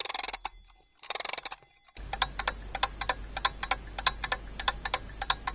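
Two short bursts of bell ringing, then from about two seconds in a clock ticking quickly and steadily, several ticks a second.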